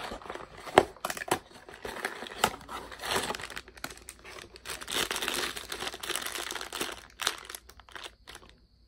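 A small cardboard Funko mystery-mini box being cut and pulled open, with a few sharp clicks and knocks, then a foil blind bag crinkling and tearing as it is handled and opened.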